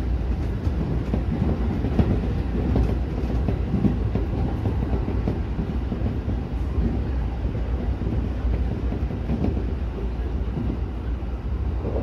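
JR E231-series electric train running at speed on track, a steady rumble of wheels on rail with occasional clicks, heard from inside the front car.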